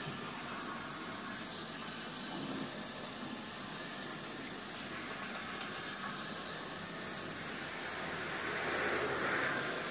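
Handheld shower sprayer running, water spraying steadily onto a dog's wet coat and the tub floor, a little louder near the end.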